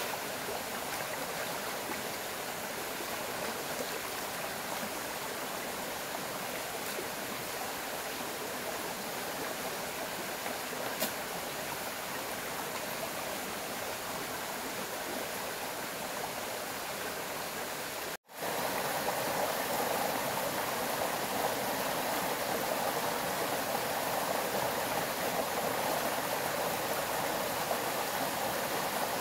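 A forest stream running steadily. About eighteen seconds in, the sound cuts out for an instant, then comes back louder and fuller.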